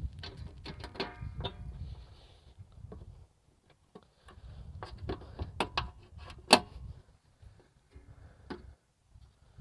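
Metal clicks and clanks of a trampoline spring puller stretching the mower deck's tension spring onto its hook, with a brief metallic ring about a second in and one sharp, loud click about six and a half seconds in. A low rumble comes and goes underneath.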